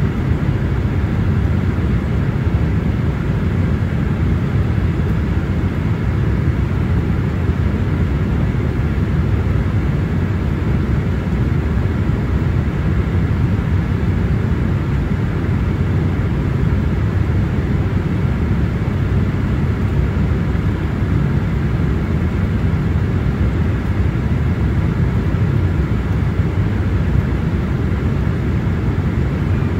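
Cabin noise of a Boeing 777-300ER in flight: a constant low rushing of airflow and engines, even throughout.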